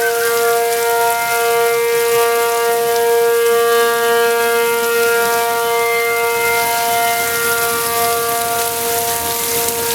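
Outdoor tornado warning siren sounding a long steady tone with strong overtones, signalling a tornado warning.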